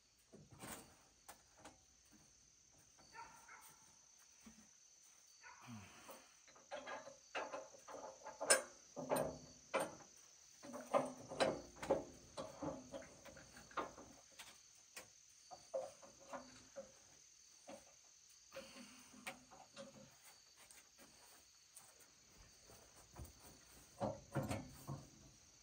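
Wood and metal knocking and clattering as boards are set on edge and clamped on a sawmill's steel bed, busiest in the middle and again near the end. A steady high insect trill runs underneath.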